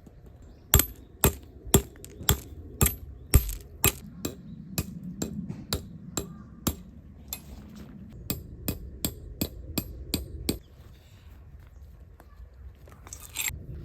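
Metal tent pegs being hammered into the ground: sharp ringing strikes about two a second, a run of about seven, then after a pause of several seconds a second run of about seven.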